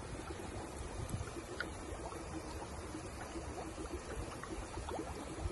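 Steady, faint outdoor background noise with a few faint ticks.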